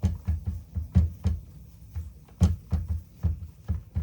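A quick, slightly uneven series of knocks with a heavy low thump, about three to four a second.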